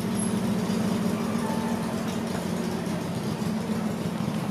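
A steady low mechanical hum, unchanging, like a motor or engine running.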